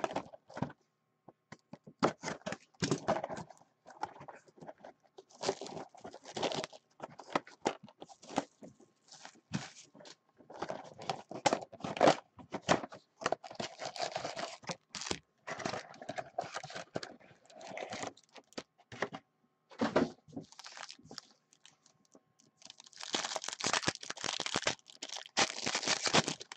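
Packaging of a sealed Upper Deck Allure hockey card box being torn and crinkled open: plastic wrap and cardboard crackling and ripping in irregular bursts. Near the end comes a longer, louder rip as a foil card pack is torn open.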